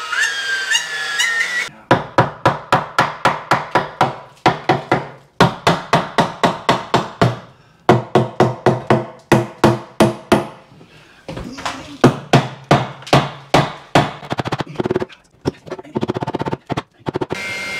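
Background music with a fast, even percussive beat, breaking off briefly a few times.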